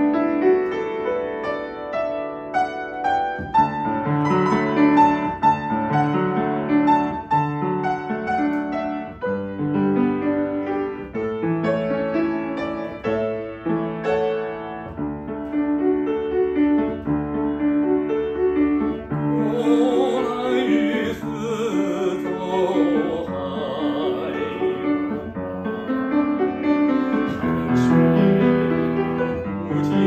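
Upright piano playing a song's introduction alone; about twenty seconds in, a man's voice comes in singing over it with vibrato.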